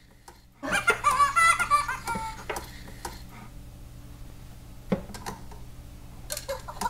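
Fingerlings baby monkey toy chattering and giggling in a high, squeaky voice for about two seconds, then quieter, with a single sharp click about five seconds in.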